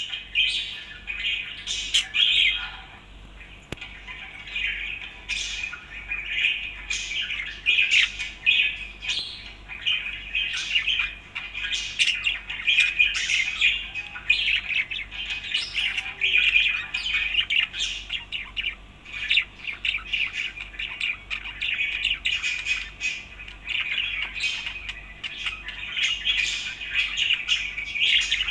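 Budgerigar chattering and chirping continuously, a busy stream of short chirps and squawks.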